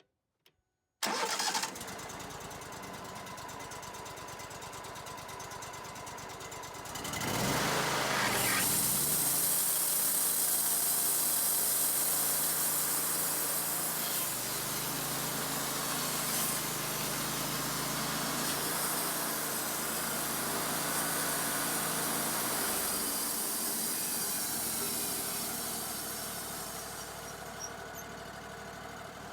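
Wood-Mizer LT35 band sawmill's engine starting about a second in and running steadily, then coming up to speed about 7 s in as the band blade runs through a cedar block with a high hissing whine for about twenty seconds, easing back near the end.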